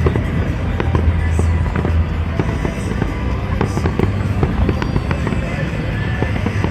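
A fireworks display: many crackling pops and bangs going off in quick succession.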